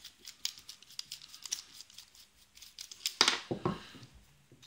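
Small clicks and light metallic rattles of an opened padlock and its half-euro core being handled, with one louder burst of handling noise about three seconds in.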